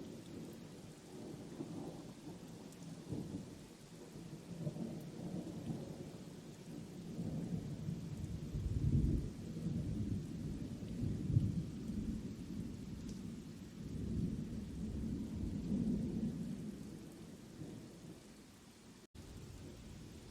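Thunder rumbling in long rolling swells that build and fade, loudest in the middle, over a steady faint hiss of rain.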